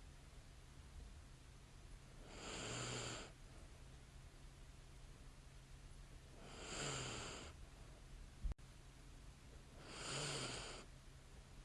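A sleeping woman's slow, light snoring breaths, three of them about four seconds apart, each lasting about a second, over a steady low hum. A single brief click falls a little after the second breath.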